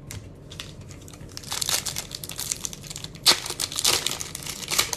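A foil trading-card pack wrapper crinkling as it is torn open by hand, with a sharp crackle about three seconds in.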